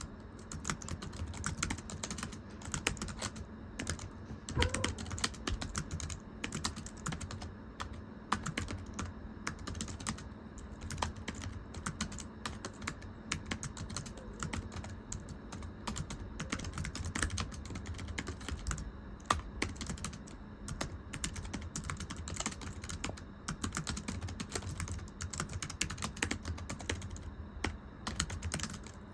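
Fingers typing continuously on a very thin computer keyboard: a rapid, irregular stream of light, flat key clicks, with a faint steady hum underneath.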